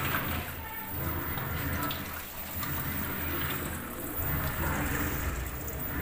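LG top-load washing machine filling: water pouring from the inlet into the tub, with a low hum that swells and fades about once a second.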